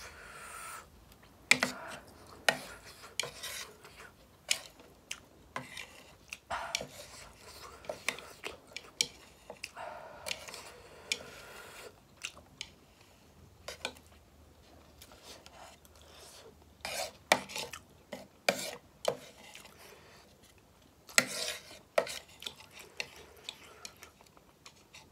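Eating utensils clicking and scraping against a bowl as ramen noodles are stirred and picked up, in irregular light knocks with a few longer scrapes.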